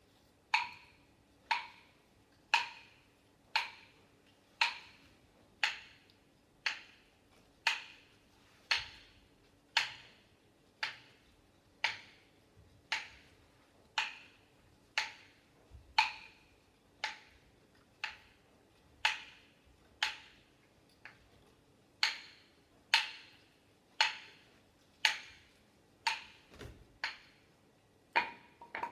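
A small hand percussion instrument beating out a steady pulse: one sharp, briefly ringing knock about once a second, quickening into a rapid roll at the very end.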